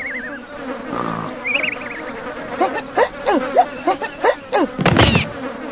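Playful, cartoon-like sound effects: a warbling whistle, then a quick run of short squeaky chirps that slide up and down, over a steady buzzing background.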